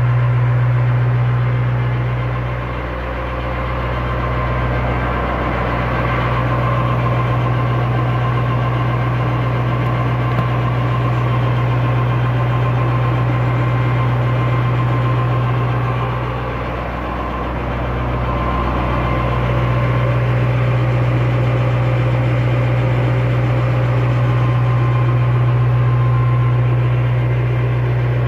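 Tractor-driven FOGO 27 kVA PTO generator running with a steady low drone. The drone dips briefly twice, about three seconds in and again about seventeen seconds in.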